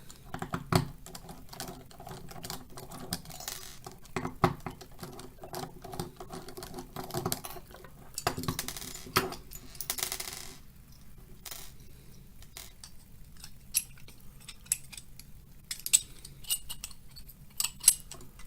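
Small metal parts of a scale RC beadlock wheel clicking and clinking as the wheel is taken apart, with scattered sharp taps throughout and a short scraping rustle about halfway through.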